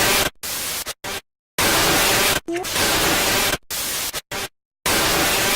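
Edited sound-effect bursts of loud static-like noise, about seven in a row, each a second or less, chopped off abruptly by gaps of dead silence. About two and a half seconds in, one burst opens with a short rising tone.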